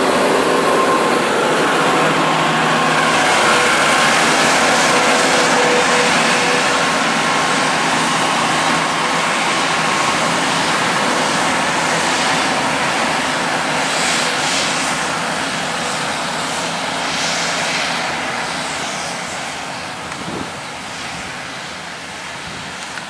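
Heavy diesel trucks droning on a highway, over gusty wind on the microphone. The engine lines of the oversize excavator load fade slowly as it climbs away. About halfway through, a road train passes close by with a rush of tyre and air noise.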